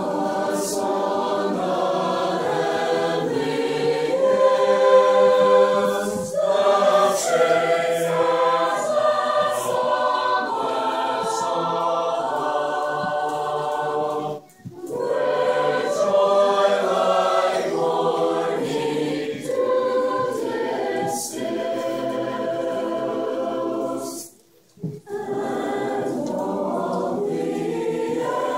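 Mixed choir of men's and women's voices singing a hymn a cappella, with no instruments. The singing pauses briefly about halfway through and again about four seconds before the end, between phrases.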